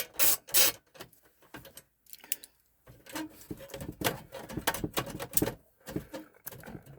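Hands and a screwdriver working on a Tandy 2000 computer's case during disassembly. There are a couple of sharp scrapes at the very start, then a run of small clicks and knocks from about three seconds in.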